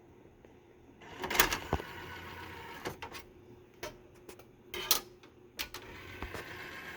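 DVD recorder ejecting a disc: the tray mechanism runs with a steady motor whir for several seconds, with a series of sharp clicks and knocks, the loudest about a second and a half in.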